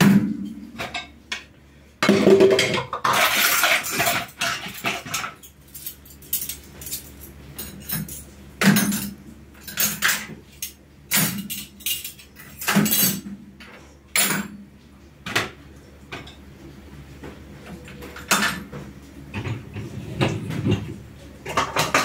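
Dishes and cutlery clattering as they are handled, a run of separate clinks and clanks, with a denser, louder stretch of clatter between about two and five seconds in.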